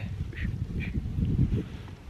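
Wind rumbling on the microphone, with two short, faint, croaky bird calls about half a second apart near the start.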